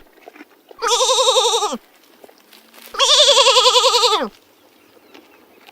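Two long, quavering bleats from a goat or sheep, each dropping in pitch as it ends, with the cut-off tail of another bleat at the very start.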